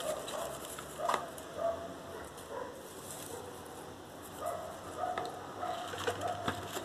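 Crumbled dry leaves rustling and ticking as they are dropped by hand into a cardboard milk carton, with a few sharp clicks. Short pitched sounds come and go in the background.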